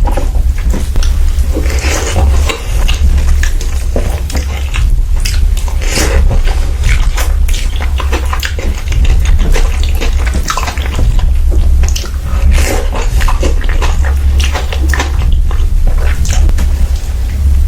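Close-miked eating sounds: steady wet chewing and lip-smacking, dense irregular clicks and smacks with no pause, over a constant low hum.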